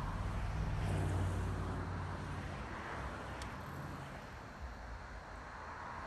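Road traffic: a car passing, loudest in the first two seconds or so and then fading, over a steady low rumble of traffic.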